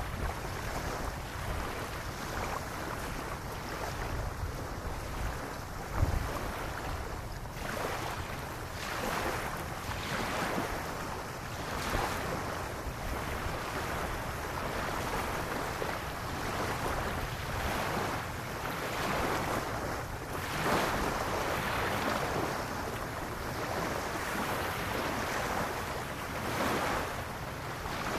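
Small waves lapping and washing up on a sandy beach, each wash swelling and fading every couple of seconds, with wind rumbling on the microphone. A single short knock about six seconds in.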